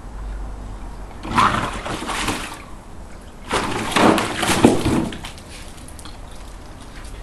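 A dog splashing and sloshing water in a plastic paddling pool, in two bursts a couple of seconds apart.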